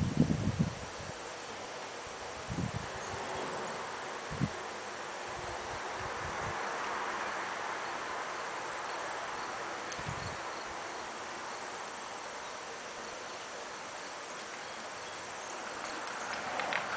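Steady outdoor ambience: insects droning in a constant high thin tone, with soft rustling and a few low thumps. Near the end a horse drawing a cart comes closer.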